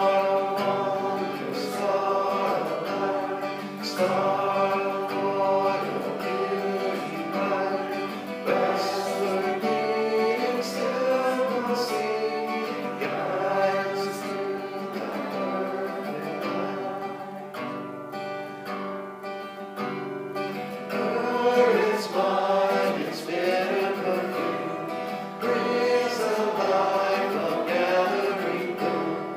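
A hymn sung by several voices together to a strummed acoustic guitar.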